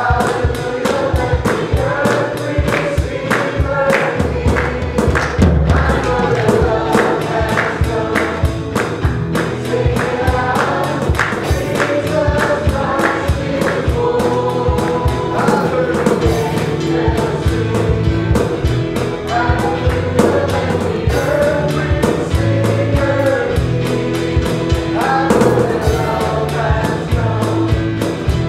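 Live worship band playing an upbeat Christmas song: electric guitars, keyboard and drums with a steady beat, under a group of men and women singing together.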